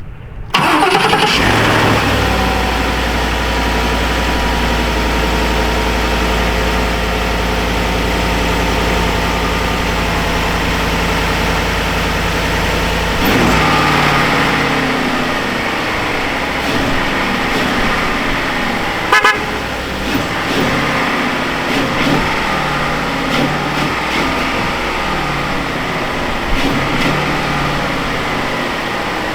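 2015 Ford F-150's 5.0L V8 starting on the newly replaced starter: it catches about half a second in and settles into a steady idle. The engine note shifts and wavers from about halfway through.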